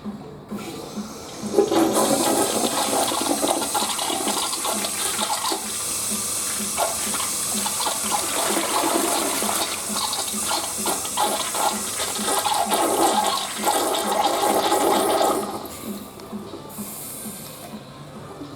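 Western-style toilet flushing: a loud rush of water begins about a second and a half in, runs steadily for some fourteen seconds, then drops to a quieter hiss near the end.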